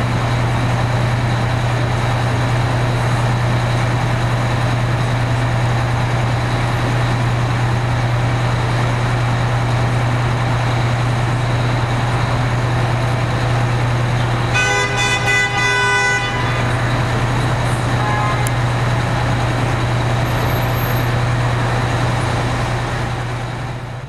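Fire truck's diesel engine idling steadily amid city street traffic. A vehicle horn honks once, held for about a second and a half, a little past the middle.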